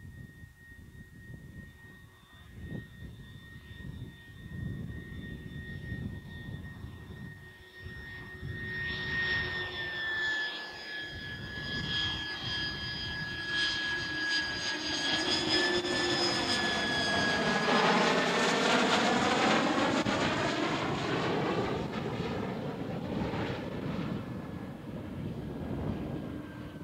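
Lockheed U-2's single turbofan jet engine at approach power on final approach, passing close by. A high steady whine over a rumble grows louder to a peak about two-thirds of the way through, its pitch dropping slightly as the aircraft passes, with a swirling phasing sound at the peak, then eases off as it heads for the runway.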